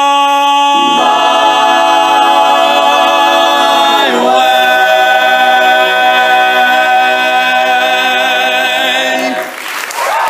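Male a cappella group singing the closing held chords of a song, the soloist's long final note sustained over the group's harmony. The chord shifts about four seconds in, and all the voices cut off together near the end. Applause breaks out in the last moment.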